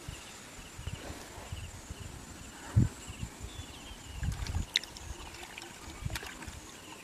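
Hands squelching and sloshing in shallow mud and water while groping for fish, with a low thump a little under three seconds in and a few sharp clicks later on.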